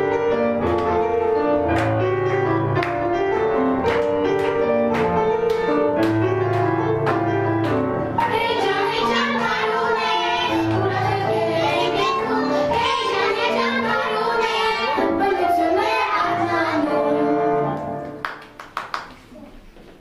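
Young children singing to recorded backing music with a steady beat. The music stops near the end, followed by a few knocks.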